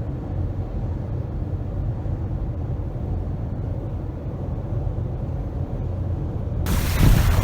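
Steady low rumble of a vehicle's engine and running noise. Near the end it cuts abruptly to wind blowing on the microphone and surf.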